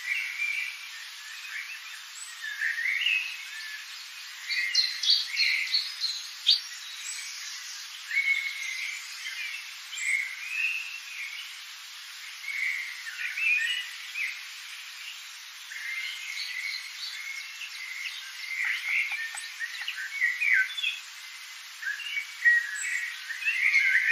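Several birds chirping and calling one after another, short warbled notes and quick trills coming every second or two.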